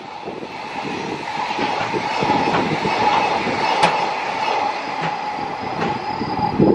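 Container freight train rolling away along the rails just after its last wagon has passed: steady wheel-on-rail noise with a constant high hum and a light clickety-clack. A brief loud low rush comes near the end.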